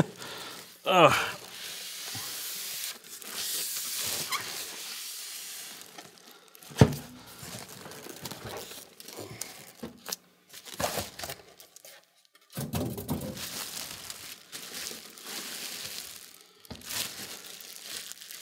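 Clear plastic wrap crinkling and rustling while the foam-capped packing is handled around a heavy PC case, with one heavy thump about seven seconds in as the case is set down on the desk.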